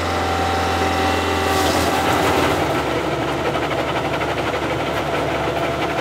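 Bobcat S64 skid steer's diesel engine running steadily. About two seconds in, a loud, continuous grinding rush joins it as the loader's solid rubber tires spin in place on concrete in a burnout, heating the rubber.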